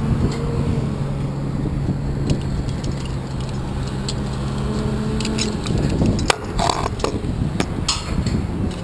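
Wind rumbling on the microphone over a steady low hum that stops about five and a half seconds in. Near the end come a run of sharp metal clinks: climbing hooks and hardware knocking against the tower's steel lattice.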